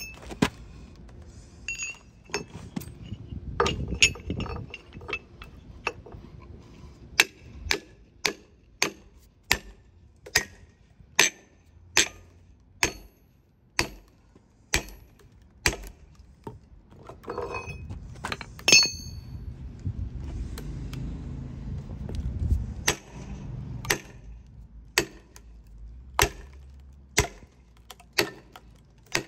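Sledgehammer striking metal splitting wedges driven into a hickory log round: a steady series of sharp, ringing metal-on-metal strikes, roughly one a second.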